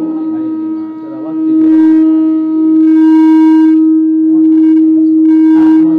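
Public-address feedback through a handheld microphone: a loud, steady howl held on one unwavering pitch, with a stack of overtones above it.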